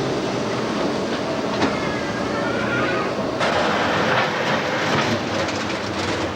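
Street tram running on its rails, wheels clattering, with a faint squeal about two seconds in; the noise grows sharply louder about three and a half seconds in.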